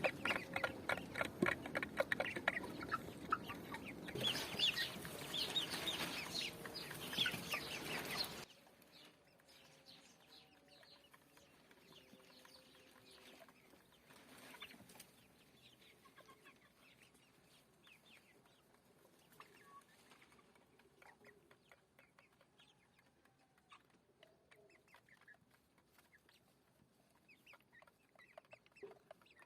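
A flock of chickens clucking, loud and busy with many overlapping calls. About eight seconds in the sound drops off abruptly, leaving fainter, scattered clucks and calls.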